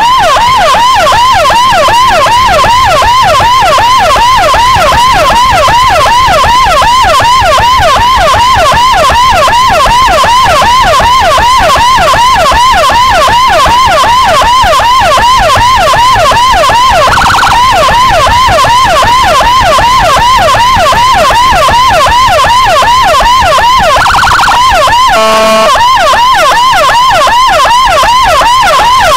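Motorcycle-mounted CJB 200E electronic siren through a TOA YD100i speaker sounding a fast yelp, loud and close, sweeping up and down in pitch several times a second. Twice past the middle a short different tone breaks in, and near the end there is a brief horn-like blast.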